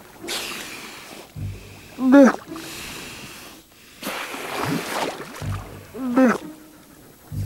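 Weddell seals calling on the sea ice: short pitched calls that rise and fall, about four seconds apart, with breathy exhalations between them and a few low thumps.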